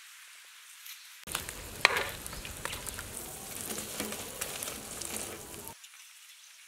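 Wontons deep-frying in hot oil: a busy sizzle and crackle that starts about a second in and cuts off sharply shortly before the end, with one loud click about two seconds in.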